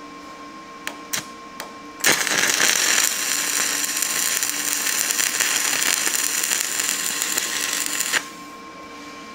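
Stick (arc) welding on a steel floor jack frame: a few short clicks, then the arc strikes about two seconds in and crackles steadily for about six seconds before cutting off suddenly.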